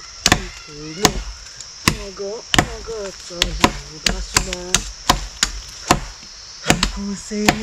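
Repeated chops of a blade into wood, sharp single strikes coming irregularly about one or two a second.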